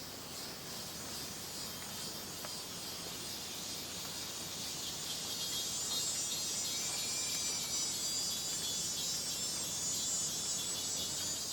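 Tropical rainforest insect chorus: a dense, high-pitched buzzing trill that grows louder about five seconds in and then holds steady.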